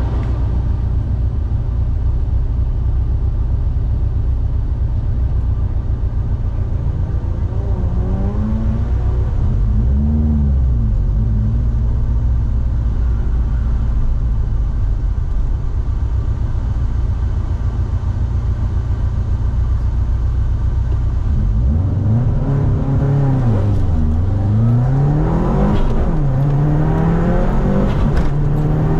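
Subaru WRX turbocharged flat-four heard from inside the cabin, running steadily at low revs with a few brief revs about a third of the way in. Near the end it launches and accelerates hard, revs climbing and dropping through the gear changes.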